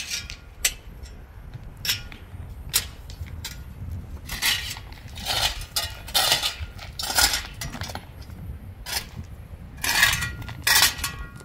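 A metal shovel digging into stony ground: repeated scraping strokes, with the blade clinking and briefly ringing as it strikes stones.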